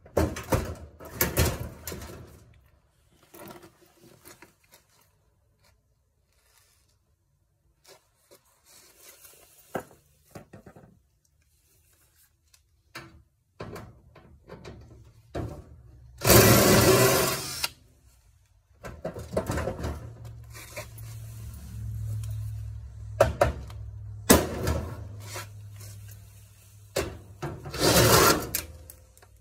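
Hand work on a washing machine being stripped for scrap: scattered knocks, clatter and scraping of tools and metal parts, with a loud noisy burst of about a second and a half near the middle. A steady low hum comes in for the second half.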